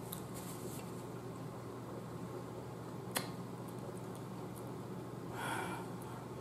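Quiet room tone with a steady low hum, broken by a single sharp click about three seconds in and a short breathy rush about five and a half seconds in.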